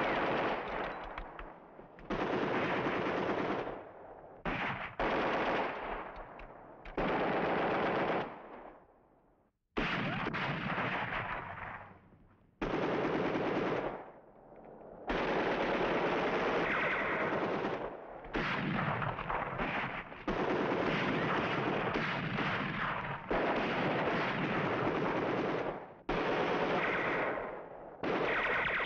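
Machine-gun fire in repeated bursts of one to three seconds each, starting and stopping sharply, with short gaps between.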